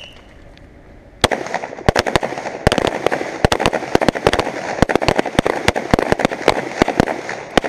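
A line of shooters firing handguns drawn from the holster, a rapid, irregular string of overlapping pistol shots starting about a second in and continuing throughout, as in a timed qualification string.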